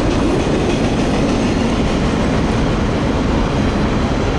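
Freight train cars rolling past on the rails, a steady loud rumble of wheel noise.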